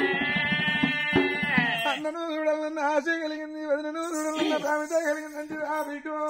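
A male voice singing an Oggu Katha folk ballad melody, holding a long note over the first two seconds and then running through short ornamented, wavering phrases, with drum strokes beneath the held note.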